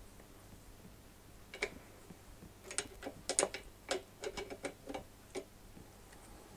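About a dozen sharp, irregular metal clicks over a few seconds as a hand tool works the oil drain plug on an air compressor's crankcase, loosening it to let excess oil back out.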